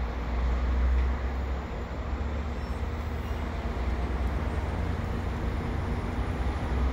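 Commuter train of bilevel passenger coaches rolling slowly past the platform: a steady low rumble of wheels on the rails with a faint steady hum.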